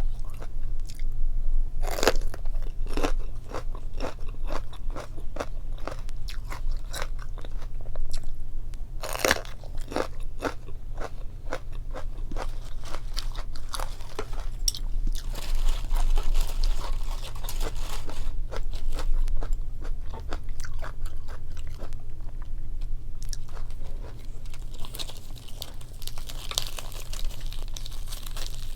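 Close-miked chewing and crunching of kimchi and boiled pork, with crisp bites. The loudest come about two seconds in and again about nine seconds in, over a steady low hum.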